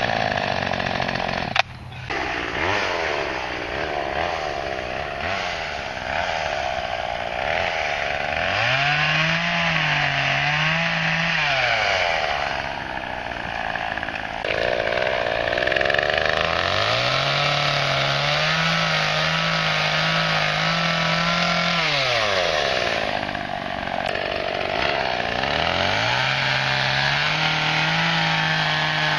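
Homelite two-stroke gas chainsaw with a 16-inch bar cutting tree limbs. Its engine revs up to full throttle three times, holds for several seconds each time, and drops back toward idle between cuts. There is a sharp knock about one and a half seconds in.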